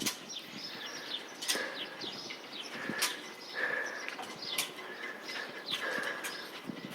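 Small birds chirping over and over in short high notes, with a few sharp clicks mixed in.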